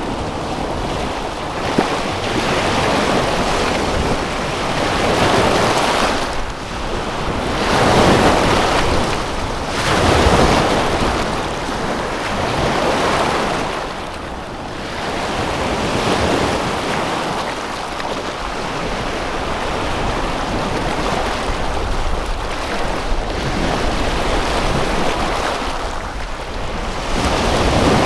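Waves washing in, the rushing noise swelling and falling every two to three seconds, with wind.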